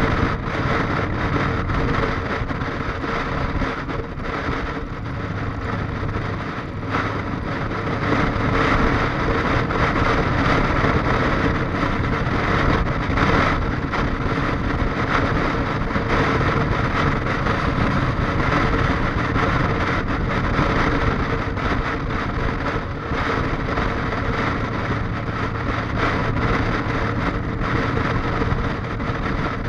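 Motorcycle engine running steadily at highway cruising speed, mixed with wind noise on the microphone.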